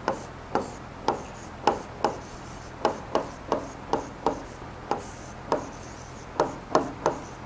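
Stylus tapping and scratching on the glass of an interactive display panel during handwriting: an irregular run of sharp taps, two or three a second, each with a short ring.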